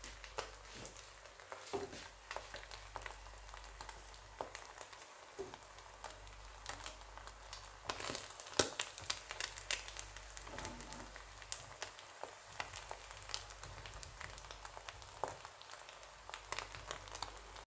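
Wooden spoon stirring cooked fried rice in a stainless steel pot: soft scrapes and light clicks of the spoon against the pot, busiest about halfway through.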